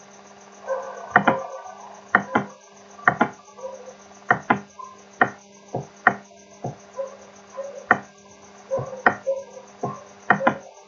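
A computer mouse clicking over and over, a click or a quick pair of clicks about once a second, over a steady low electrical hum.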